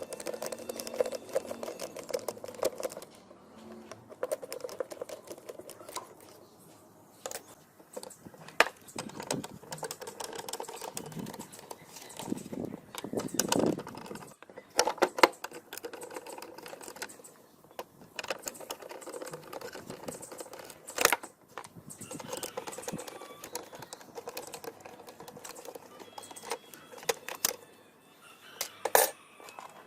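Irregular clicks, taps and knocks of hand tools working on small metal parts of an old electric fan, with a few sharper knocks among them.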